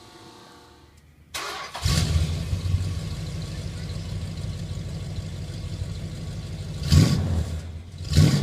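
Chrysler 440 big-block V8 cranking on the starter and catching about two seconds in, then idling with a deep note through a dual 2.5-inch exhaust with AP mufflers and Magnaflow resonators. Two short throttle blips near the end.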